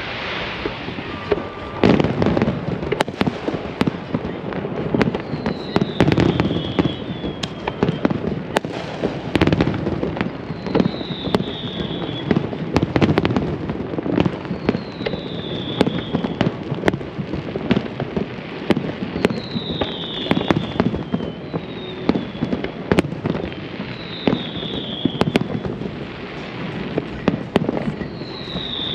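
Fireworks show in full swing: a dense, continuous run of bursts, booms and sharp cracks, with a short falling whistle about every two seconds.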